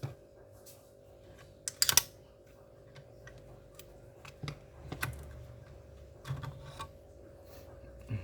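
Scattered light clicks and taps of small plastic and metal parts as a laptop's hard drive is worked loose, with the sharpest click about two seconds in.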